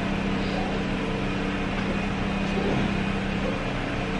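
A steady machine hum with a constant low tone that neither rises nor falls.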